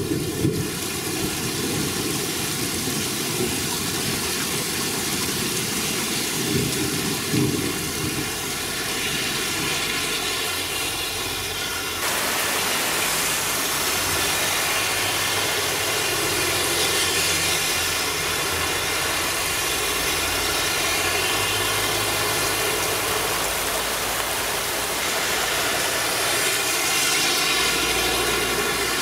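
Heavy rain falling: a steady hiss of the downpour, changing in tone at a cut about twelve seconds in.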